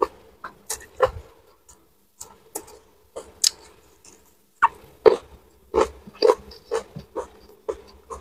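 Close-miked mouth sounds of a person eating by hand: chewing and lip-smacking, heard as short, irregular wet clicks and smacks about one or two a second.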